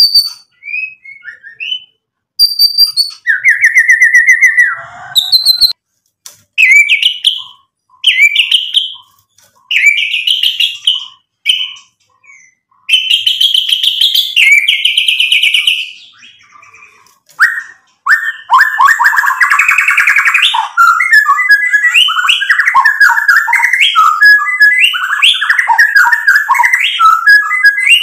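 White-rumped shama singing loudly, working through a varied repertoire of whistled phrases and imitated notes. At first the phrases come separately with short pauses, some high and clear, one sliding down. Past the middle they run together into a continuous fast stream of mixed notes and chatter.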